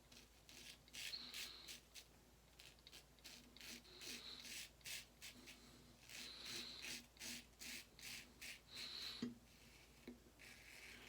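Autostrop safety razor scraping through lathered stubble in a run of short, faint rasping strokes, one to two a second.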